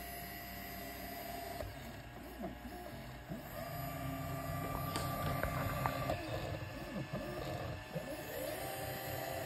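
Easythreed K9 3D printer's stepper motors driving its axes: a steady whine that jumps to new pitches as the moves change, with a short upward glide near the end.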